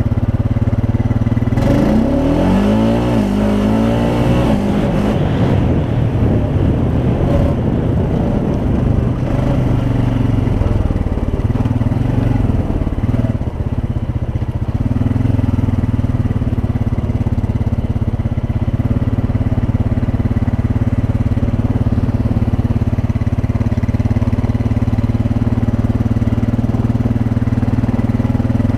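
Honda Rancher ATV's single-cylinder four-stroke engine running under way, revving up with a rising pitch about two seconds in, then holding a steady note.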